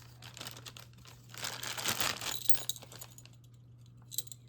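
Plastic packaging crinkling and rustling as it is handled and pulled open, busiest around the middle, with a couple of sharp clicks near the end.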